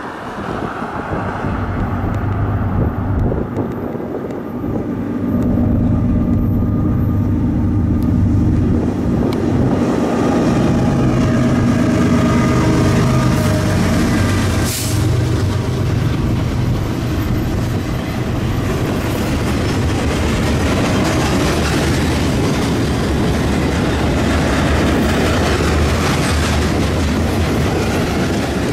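A BNSF ES44C4 diesel-electric locomotive, with its GE GEVO 12-cylinder engine, approaches and passes close by with a steady engine drone that grows louder over the first several seconds. Flatcars loaded with maintenance-of-way machinery then roll past with a steady rush of wheel-on-rail noise.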